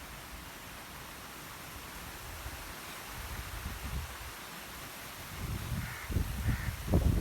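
A bird calls twice, short and harsh, about six seconds in, over low wind rumble on the microphone.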